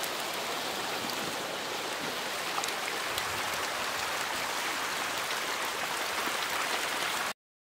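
A dense shoal of hybrid magur catfish thrashing and splashing at a pond's surface while feeding: a steady hiss of churned water like heavy rain, full of small plops and flicks. It cuts off suddenly near the end.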